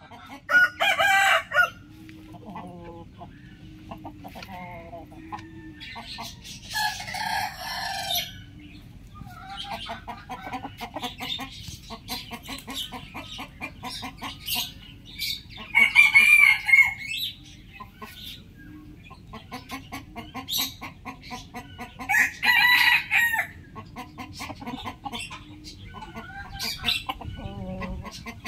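A rooster crowing four times, about every six to eight seconds, with runs of fast, rapid clucking between the crows.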